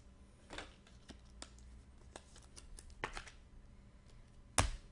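Trading cards being handled: scattered small clicks and light scrapes of card stock, with one sharper knock near the end.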